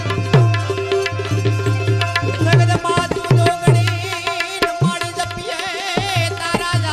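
Instrumental devotional music with tabla: a steady run of drum strokes whose deep bass strokes bend in pitch, over held tones, with a wavering melody line around the middle.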